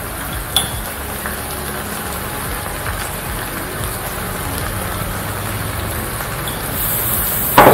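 Thick pork and chicken curry sizzling steadily in a large aluminium pot on an electric cooktop, with a low hum under the hiss and a single light click about half a second in.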